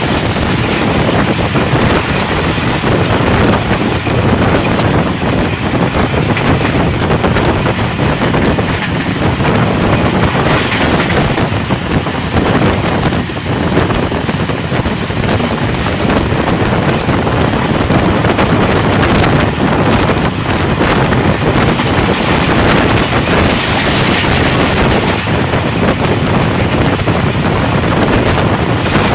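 A passenger train running at speed: a steady rush of wind on the microphone over the rumble of the moving train.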